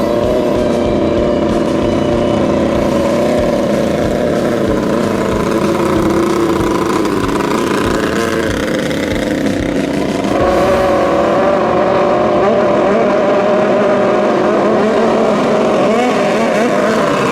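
High-revving engines of JET 650-class racing speedboats running at speed, their pitch wavering up and down, with the sound getting louder about ten seconds in.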